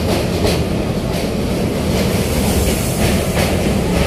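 Train running, heard from inside a carriage through an open window while it crosses a bridge over the river: a steady loud rumble with repeated clicks of the wheels over rail joints.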